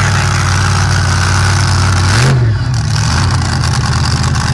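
Pulling pickup truck's engine running loudly at idle, given a short rev that rises and falls about two seconds in, then settling back to a lower, choppier idle.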